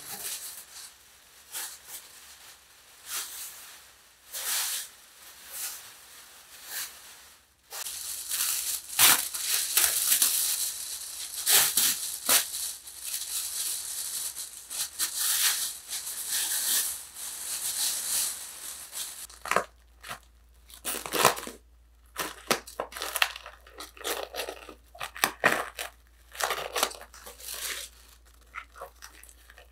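Clear plastic wrapping crinkling and rustling in irregular bursts as it is pulled off a potted tree, with a longer, louder stretch in the middle.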